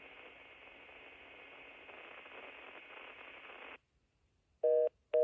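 Steady hiss of an open telephone line heard through a VTech CS5121 cordless handset, thin and cut off above the telephone band, growing slightly louder before stopping abruptly after almost four seconds. Near the end a short electronic beep sounds.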